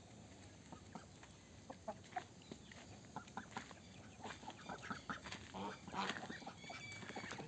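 A flock of domestic ducks calling: faint, short, scattered calls that grow busier about halfway through.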